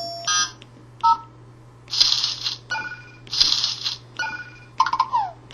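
Samsung Galaxy S4's built-in sound effects played one after another: a string of short electronic beeps and chimes, two brief noisy swishes, and quick chirps falling in pitch near the end.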